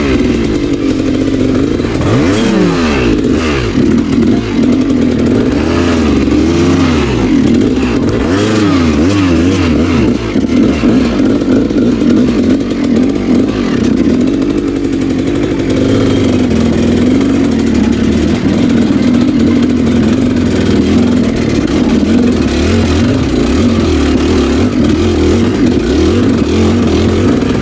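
Motorcycle engine running under load on a rough off-road trail, revving up and down in repeated swells over the first ten seconds or so, then running more steadily, with some rattling.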